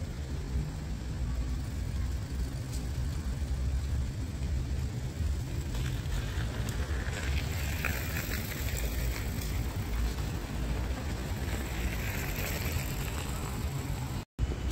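Steady low rumble of distant road traffic, the general outdoor hum of a city, with a faint hiss that comes up in the middle and fades again.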